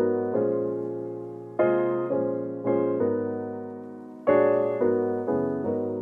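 Background music: a piano or electric piano playing chords, struck every second or so and left to fade.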